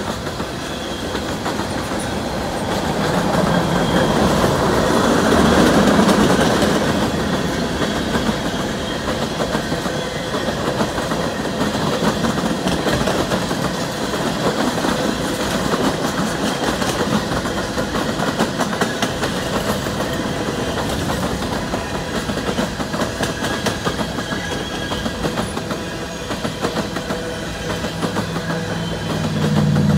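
Freight train of tank cars rolling past: a steady rumble of steel wheels on rail with a running clickety-clack, swelling a little a few seconds in.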